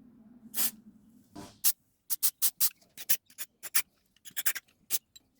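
Short hiss bursts, then a run of quick scratching strokes, several a second, from cleaning a small brass carburetor main jet by hand.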